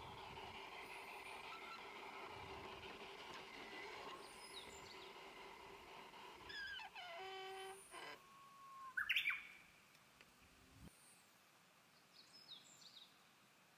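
Wild birds chirping and singing in a garden, with one louder rising call about nine seconds in and small high chirps after it. A steady hum runs under the first half and stops partway through.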